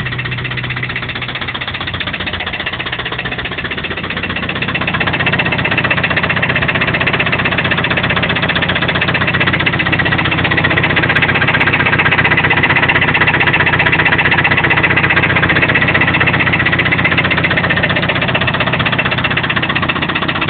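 Toyota 22RE 2.4-litre four-cylinder engine running with a rapid, regular knock. It gets louder about five seconds in. The owner cannot tell whether the knock is in the rocker (valve) assembly or deeper in the block, such as a rod bearing.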